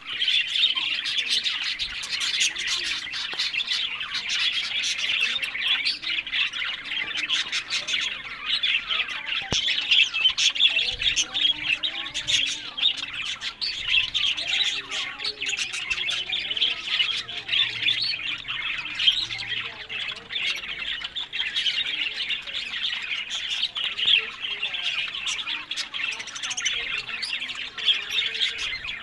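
Budgerigars chattering continuously: a dense stream of short, overlapping chirping calls with no pause.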